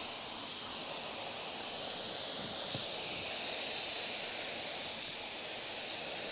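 Gravity-feed paint spray gun on compressed air, spraying a coat of paint with a steady hiss.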